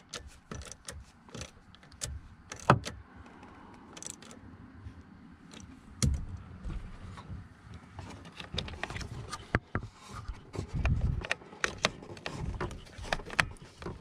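Scattered plastic clicks, taps and rubbing as wiring and electrical connectors are handled and pushed into place at a truck's steering column turn signal switch. A few dull knocks, and the handling grows busier in the second half.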